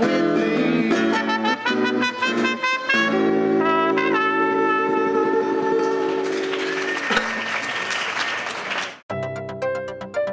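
Live music from an audition performance ends on a long held chord, followed by a noisy stretch. A sudden cut about nine seconds in brings in a different piece with crisp, repeated notes.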